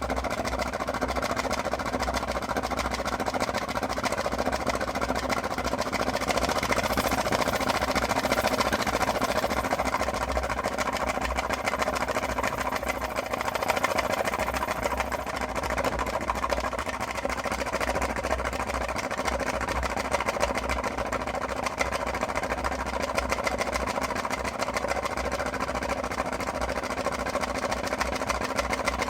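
Homemade wet thermoacoustic tailpipe engine running steadily, its moving parts ticking in a fast, even rhythm with a low flutter underneath.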